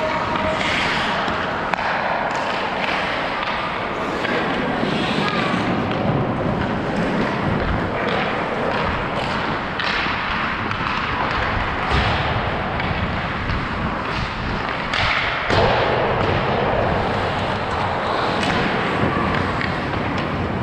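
Ice hockey play: skate blades scraping and carving across the ice, with a few sharp knocks of stick and puck, the loudest about three quarters of the way in.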